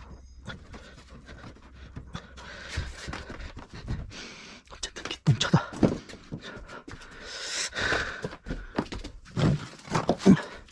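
Irregular knocks and clatter of hand work on a sink cabinet, with short hissing rustles in between; the loudest knocks come in two clusters, around the middle and near the end.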